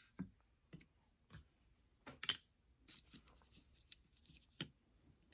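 Faint, scattered clicks and light taps from eating and handling takeout food and containers, about half a dozen, the loudest a little past two seconds in.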